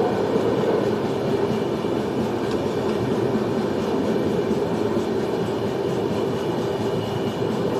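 Passenger train running, a steady rumble of wheels on the track.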